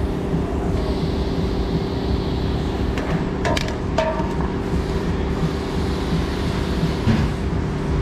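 A steady mechanical drone carries on throughout. About three and a half to four seconds in come a few sharp clicks, from handling a plastic quick-connect fitting on a truck's evap line.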